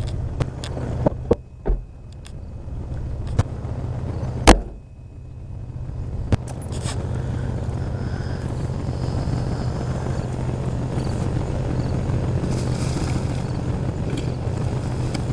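A few knocks and one loud thump, then a truck's engine running steadily as it drives off, from about seven seconds in.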